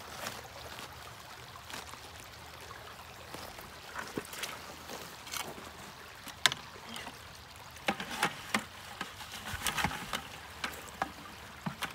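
Wet sluice concentrate of black sand and gravel tipped and scraped from a plastic bucket into a plastic gold pan: scattered clicks and knocks of a scoop and grit against the bucket and pan, the sharpest about halfway through, over the steady run of a shallow creek.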